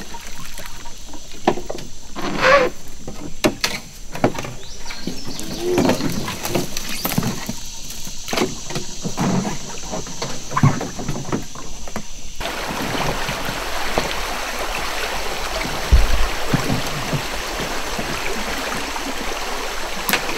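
Wilderness Systems kayak and paddle knocking and scraping in short, irregular strokes as the kayak is paddled through a jam of fallen logs on a small creek. About twelve seconds in, the sound switches abruptly to the steady rush of shallow creek water flowing around a log blockage.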